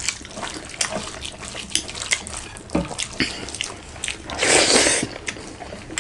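Close-miked eating sounds: wet chewing and lip smacks, heard as many small clicks, with a louder noisy sound lasting under a second about four and a half seconds in.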